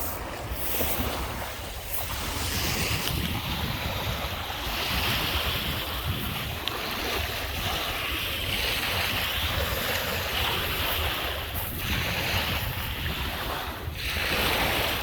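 Lake Michigan waves washing onto the beach, the surf rising and falling in swells every few seconds, with wind rumbling on the microphone.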